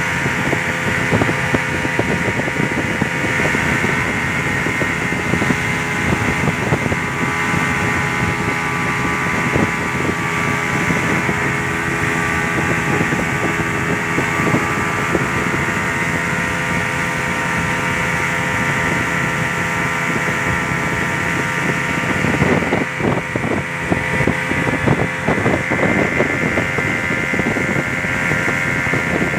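Speedboat engine running steadily at high speed, heard from on board, with the rushing noise of the hull hitting and skimming the water. The hull knocks get rougher and more uneven for a few seconds about three-quarters of the way through.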